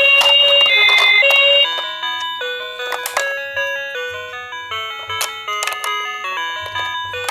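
Two-tone ambulance siren alternating high and low, which stops about a second and a half in. A chiming melody follows, like the tune a Japanese garbage truck plays, with a few sharp clicks.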